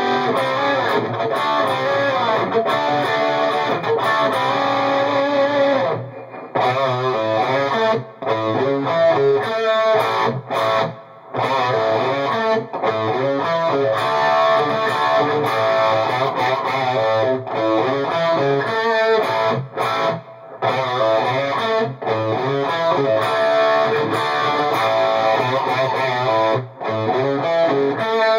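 Distorted electric guitar played through a pedalboard and an EVH 5150 III tube amplifier, a busy jam of changing notes broken by several short stops.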